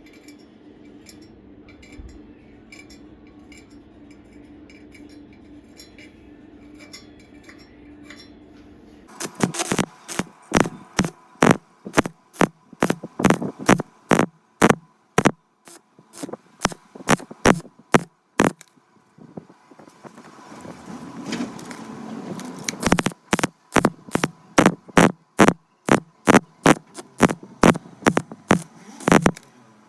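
A steady low hum, then, from about a third of the way in, a long run of sharp metal-on-metal taps, about two to three a second. A short rising scraping noise comes partway through, before the taps start again.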